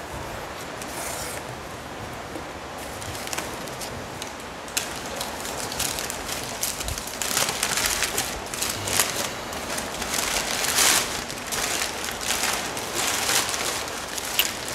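Crumpled packing paper rustling and crinkling as a wrapped item is lifted out of a cardboard box and unwrapped, with paper and cardboard handling growing busier from about five seconds in.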